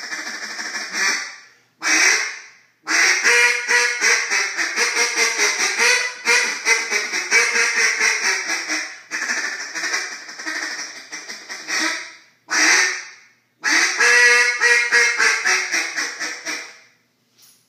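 Echo Timber single-reed duck call blown in runs of rapid quacks, with short pauses between them. The longer runs fall in pitch toward their ends.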